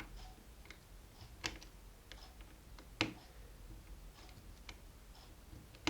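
Small tool clicking and scraping on the metal pin of an electric kettle's thermostat switch while the pin is worked loose, with sharper clicks about a second and a half in, about three seconds in, and at the end.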